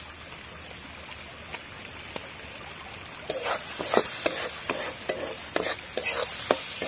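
A spice masala frying with a soft, steady sizzle in a metal kadai; from about three seconds in, a metal spatula stirs and scrapes it round the pan in a run of quick, irregular strokes.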